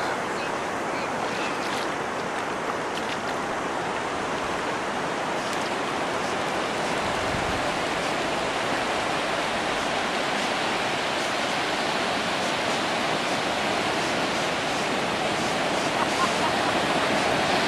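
Ocean surf washing steadily onto a flat sandy beach, getting a little louder in the last couple of seconds.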